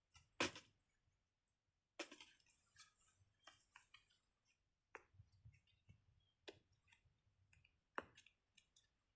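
Faint, scattered clicks and taps, roughly one every second or two, from a silicone pop-it fidget toy being handled and pressed.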